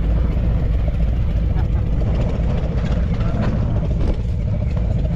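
Harley-Davidson Forty-Eight's V-twin engine running steadily under way, with wind rush over the microphone.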